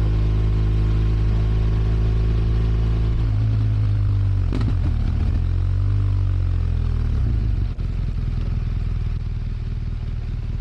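BMW R1200 RS flat-twin boxer engine running at steady revs, then a throttle blip that rises and falls in pitch, after which it drops to a slightly quieter, lumpy idle.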